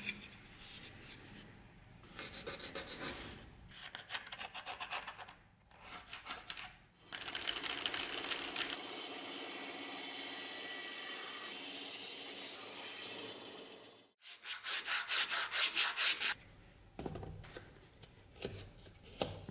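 Bench bandsaw running and cutting a small block of wood for about seven seconds, cutting off abruptly about fourteen seconds in. Before and after it come bursts of quick hand-tool strokes scraping on wood, the loudest burst just after the saw stops.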